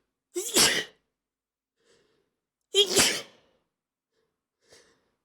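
A person sneezing twice, about two and a half seconds apart, each sneeze loud and short.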